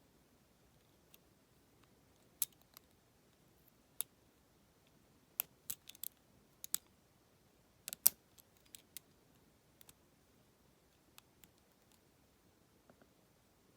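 Small, sharp metallic clicks and ticks of a lock pick and tension wrench working inside a Federal PL90PE lockout padlock's keyway, as pins are raised and set. The clicks are irregular and scattered, bunching in the middle, with the loudest about eight seconds in.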